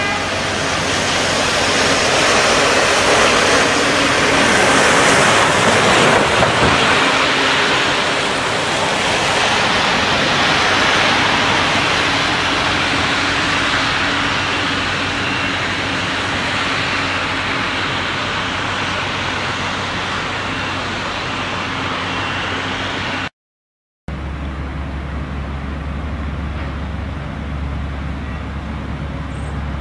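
Steady outdoor rush of road traffic noise, growing louder from about two seconds in and easing again after about ten seconds. A short dead-silent break comes about 23 seconds in, after which a quieter steady rush with a low hum carries on.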